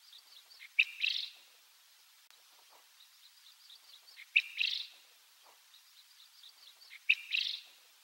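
Japanese quail crowing three times, about three seconds apart: each call is a sharp note followed at once by a short harsh rattle, with soft faint notes before it. This is the species' usual crow, rendered in Japanese as "ajapā".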